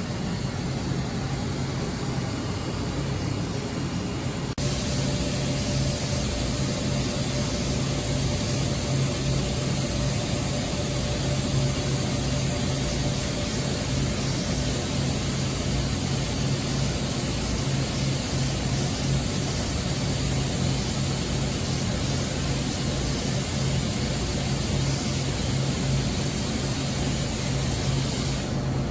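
WFL M35G Millturn CNC turning center running its warm-up program: a steady machine hum with a constant low drone and a faint higher whine for a while. It gets slightly louder about four and a half seconds in.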